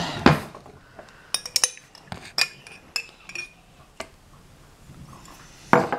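A metal spoon clinking against glass and dishes: a scatter of short, sharp clinks, most of them in the first three seconds or so and one more about four seconds in.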